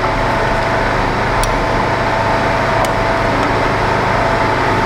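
Steady mechanical hum with two constant tones, with a few faint light clicks over it.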